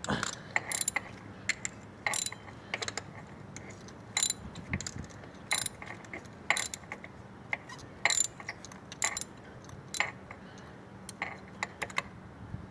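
Ratchet wrench clicking in short, irregular runs as it works a tight spark plug loose.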